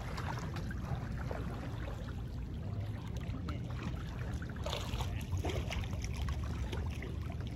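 Swimmers splashing through pool water, with water lapping near the microphone and a cluster of splashes about five seconds in, over a steady low rumble.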